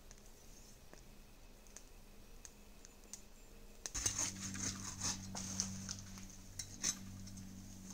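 Faint scattered ticks of a small campfire and eating at first; then, about four seconds in, louder crackling and rustling of brush and twigs as a long wooden pole is dragged through forest undergrowth, over a low steady hum.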